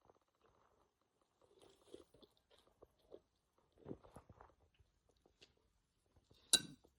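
Faint, scattered mouth and throat noises from a person, short wet smacks and gulping sounds, with one sharp click near the end.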